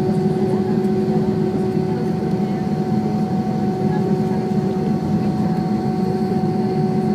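Airbus A320 cabin noise: the steady drone of the jet engines and rushing air, with a few steady humming tones over it.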